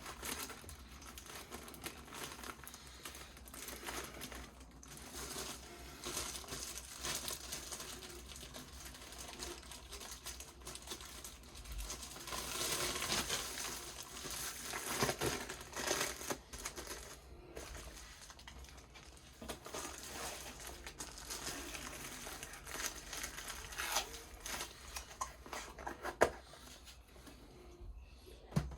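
Plastic packaging and a rolled diamond painting canvas crinkling and rustling as they are handled and packed away, busiest about halfway through, with a few sharp clicks and a louder one near the end.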